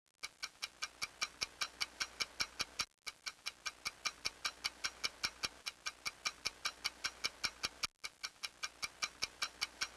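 Clock ticking fast and evenly, about six ticks a second, each tick a bright, slightly ringing click. The ticking drops out briefly twice, about three seconds in and about eight seconds in.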